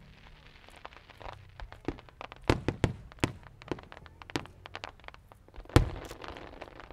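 Fireworks going off: a run of irregular sharp bangs and cracks, the loudest about six seconds in, with a short echoing tail.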